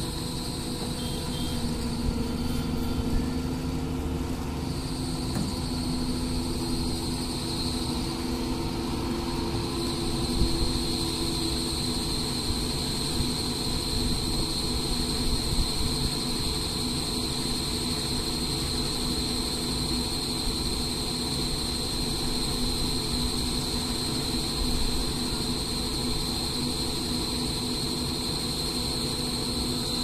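Doosan hydraulic excavator's diesel engine running steadily, with a constant high whine over a low rumble.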